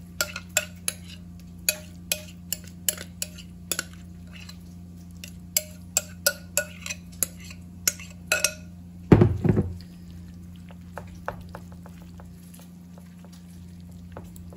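A metal spoon scraping and clinking against a glass mixing bowl as a sticky casserole mixture is scooped out into a baking pan: a quick run of sharp clinks, some of them ringing, for the first eight seconds or so. Then one heavy knock about nine seconds in, and only a few faint taps as the mixture is spread in the pan.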